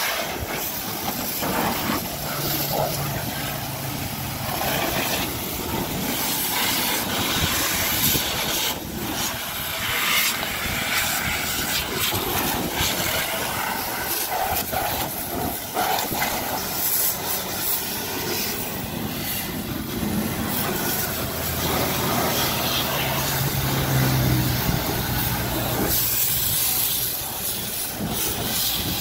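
Water from a garden hose, its end pinched to a spray, hissing and splashing against a car's tyre, wheel and lower body panels.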